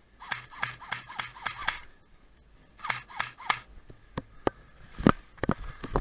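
Footsteps in short runs of quick steps with pauses between, heavier and louder near the end.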